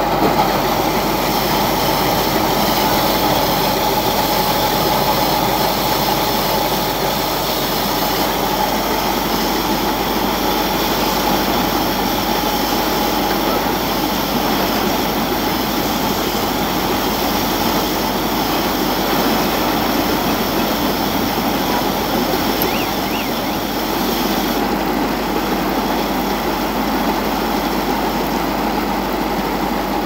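Silage baler-wrapper running steadily as a round bale turns on its rollers and is wrapped in stretch film. A high hiss in the machine noise cuts out abruptly near the end.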